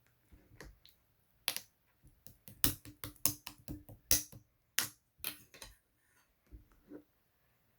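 Light-blue bubble slime being pressed and stretched by hand, giving irregular sharp clicks and pops as air pockets burst, densest in the middle and thinning out toward the end.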